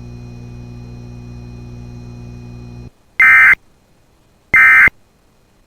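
A steady low hum of dead air that cuts off about three seconds in, then two short, loud digital data bursts about 1.3 s apart. These are the Emergency Alert System end-of-message (EOM) codes, the warbling AFSK tones that mark the close of the alert.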